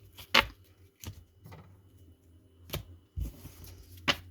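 Scattered knocks and taps of items being shifted and set down on a tabletop, about five sharp ones, with a duller thump a little past three seconds in.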